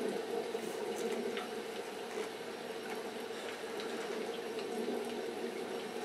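Steady background hiss like running water or a fan, with a few faint light clicks.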